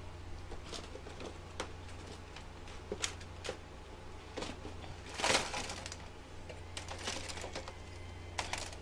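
Scattered small clicks and taps of a RAM module and laptop parts being handled and fitted on a laptop motherboard, with a louder rustling scrape about five seconds in. A steady low hum runs underneath.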